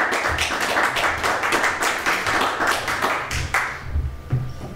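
A small audience clapping: dense, irregular hand claps that die away about three and a half seconds in.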